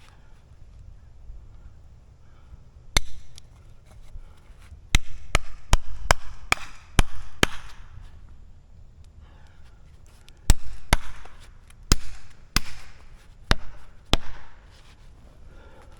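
Repeated heavy blows striking wood, each ringing briefly: a run of about ten quick strikes, a pause of a few seconds, then about six more.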